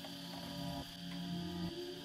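Background music with sustained notes that change about every second.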